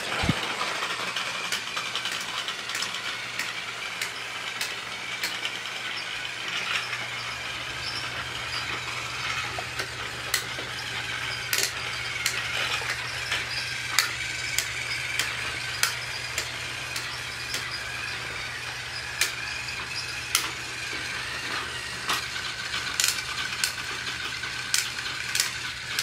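Battery-powered TrackMaster toy train running on plastic track: its small motor and gearbox whir steadily, with irregular sharp clicks and ticks throughout. A click at the very start as it is switched on.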